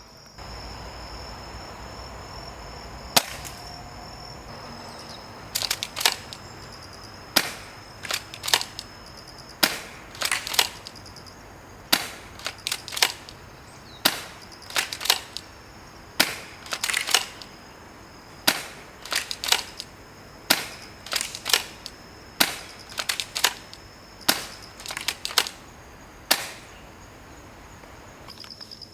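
Tokyo Marui M3 Super 90 Shorty air-cocking spring shotgun being pumped and fired again and again. The sharp clacks of each shot and pump stroke come about every one to two seconds, starting about three seconds in.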